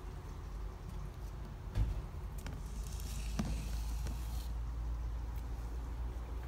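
Low steady rumble with a single knock just under two seconds in, a click and a brief rustle a little after three seconds: handling noise around the opened coilover box.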